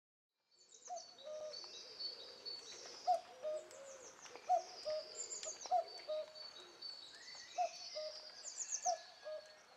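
Birds calling outdoors: a low two-note hooting call repeated about once a second under high chirping, trilling song, fading in about half a second in.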